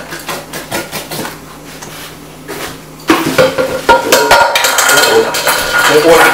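A metal utensil stirring and scraping food in a stainless steel bowl, with rapid clinking and ringing metal tones; it starts about three seconds in after a few lighter clinks and handling knocks.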